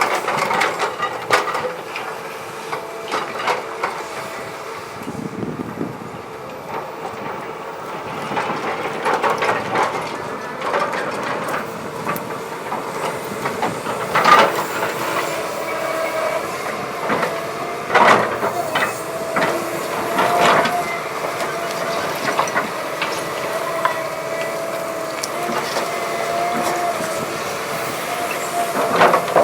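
Cat 319D hydraulic excavator working: engine and hydraulics running with a steady, slightly wavering whine. Several sharp knocks sound, the loudest about 14, 18 and 20 seconds in.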